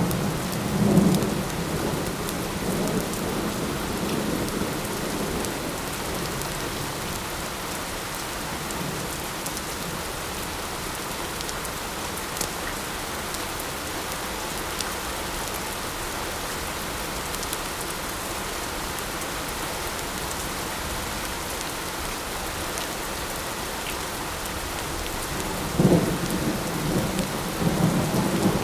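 Steady light rain with rolling thunder: a rumble fades out in the first few seconds, and another rolls in near the end.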